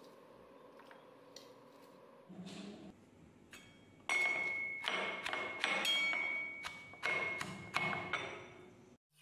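Heavy steel pestle pounding in a stainless steel mortar: a run of loud strikes starting about four seconds in, each leaving a high metallic ring, about one to two a second.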